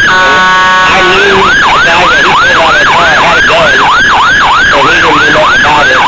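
Emergency vehicle siren in a fast yelp, its pitch sweeping about three times a second. It is broken in the first second by a steady horn blast of about a second, before the yelp resumes.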